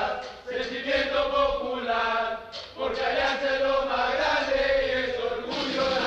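Voices chanting a Spanish-language football supporters' song in sung phrases, with short breaths between lines. A steady hiss joins near the end.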